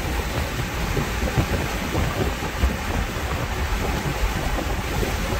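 Heavy wind rush buffeting the microphone and road noise in an open-top convertible at speed, over the 2006 Jaguar XKR's supercharged V8 pulling hard.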